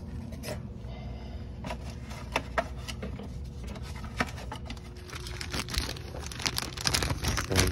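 Hands working on a rear brake caliper: scattered small clicks and taps of metal brake parts, over a steady low background rumble. From about five seconds in come denser rustling and crinkling, with a louder clatter near the end.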